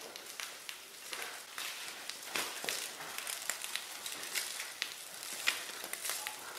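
Thick snow foam fizzing and crackling on car paint as its bubbles burst, a dense run of tiny pops. Later on a wool wash mitt adds a wet swish as it scrubs the soapy door panel.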